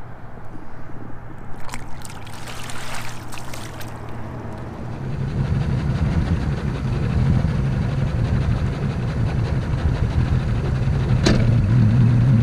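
A fishing boat's outboard motor running under way, with water and wind noise; the engine note grows louder and fuller about five seconds in as the boat picks up speed. There is a short rush of noise about two seconds in.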